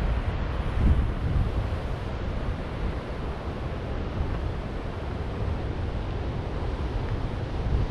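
Wind gusting across the microphone in low, uneven rumbles over a steady rush of ocean surf.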